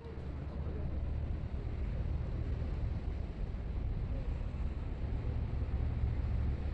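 Wind buffeting the microphone as a steady low rumble, over a faint outdoor background hiss. It cuts in suddenly at the very beginning.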